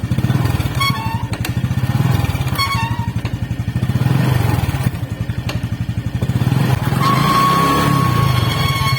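Honda Biz's small single-cylinder four-stroke engine running, with the rear drum brake squealing: short chirps early on, then one long steady squeal near the end. The squeal is the sign of a brake lining that has got wet, which the mechanic expects to clean or replace.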